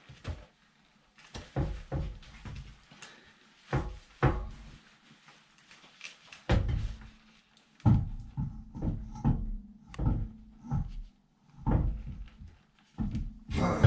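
Irregular knocks and thumps, some of them heavy, from a car wheel and tools being handled during a wheel change. They come more thickly about halfway through.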